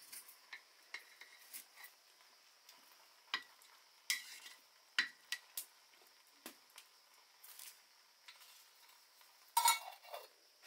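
Metal spoon stirring in a metal cooking pot, scraping and clicking against its sides in scattered taps. Near the end comes a louder clatter of metal on metal as the lid is set on the pot.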